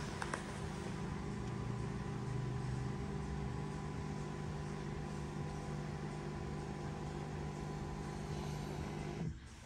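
Electric motor of a 2020 Porsche Cayenne Turbo's panoramic-roof sunshade running with a steady hum as the shade retracts, after a couple of light clicks at the start. It cuts off suddenly near the end as the shade reaches fully open.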